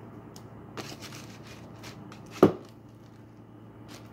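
A table knife scraping and tapping against a serving tray while slime is stirred and worked by hand, a string of light clicks with one sharp knock about two and a half seconds in.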